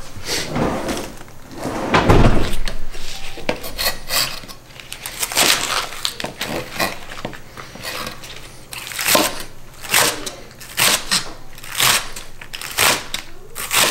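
Serrated kitchen knife slicing through a bundle of green onions and tapping down onto a plastic cutting board, a crisp crunch with each cut, settling into about one cut a second in the second half. A thump about two seconds in as the stalks are handled.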